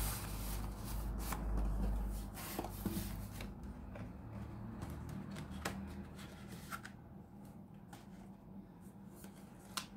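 Cardboard smartphone packaging being handled: a box sliding out of its sleeve and rubbing against the table, with rustling and a few sharp taps and clicks. A low rumble fills the first two seconds or so.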